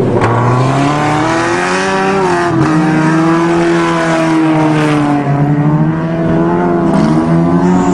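Several naturally aspirated Japanese four-cylinder car engines running hard at high revs, their pitch rising and falling as the cars drive on dirt.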